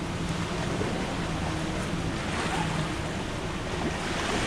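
A vehicle engine running with a low steady hum under a loud, even rushing noise.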